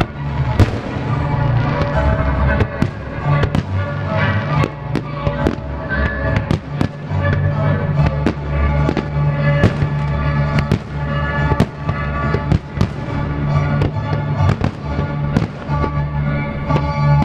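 Aerial fireworks display: shells bursting and launching in quick, irregular succession, many sharp bangs a second.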